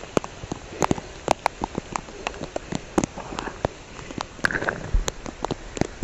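Rain falling: a steady hiss with irregular sharp drops hitting close by.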